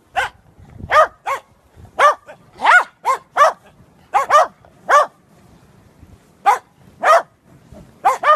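Corgis barking: about a dozen short, high-pitched barks in an uneven rhythm.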